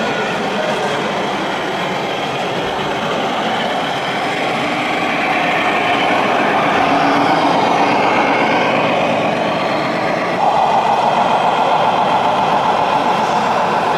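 Radio-controlled Scania model truck driving with its sound module playing a diesel truck engine, heard over a steady hall din; it gets louder about ten seconds in as the truck passes close.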